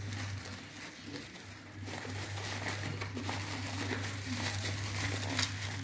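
Black plastic bubble-wrap packaging crinkling and crackling as hands unwrap it, over a steady low hum.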